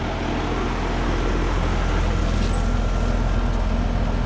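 Trane XB13 3-ton heat pump outdoor unit running in cooling mode: a steady low compressor hum under the rush of the condenser fan, with a faint steady whine above.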